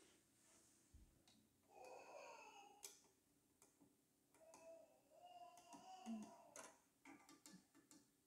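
Near silence, with a few faint sharp clicks, several in quick succession near the end.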